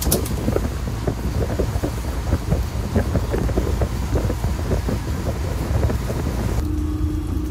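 Wind buffeting the microphone on a small fishing boat, a loud irregular rumble. Near the end the sound changes abruptly to a steadier low hum.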